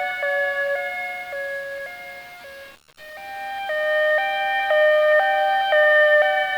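Two-tone hi-lo emergency vehicle siren, stepping between a higher and a lower note about every half second. It fades away, cuts out for a moment about three seconds in, then returns and swells louder.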